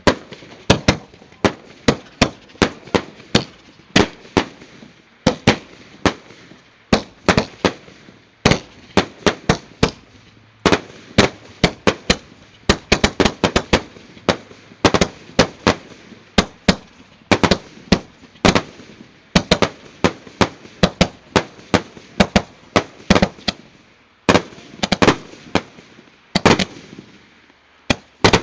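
Several consumer fireworks firing at once in a grand finale, a continuous stream of sharp pops and bangs, several a second. There are a few short lulls.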